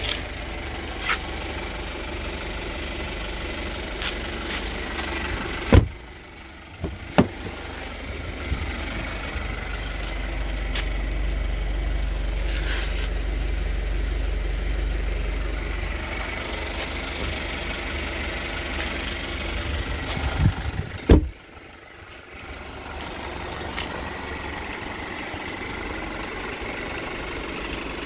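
A 2006 Kia Sportage's engine idling steadily, broken by a few sharp thumps of its doors being shut, the loudest about six and twenty-one seconds in.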